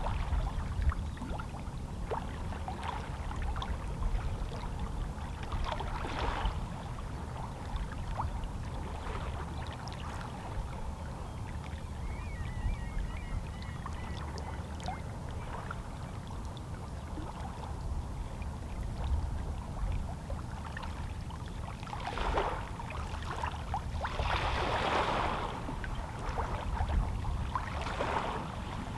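Small waves lapping and splashing against shoreline rocks on a calm sea, over a steady low rumble, with several louder splashes in the second half.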